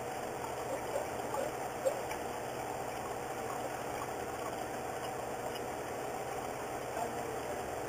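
A steady mechanical hum, with a few faint ticks in the first two seconds.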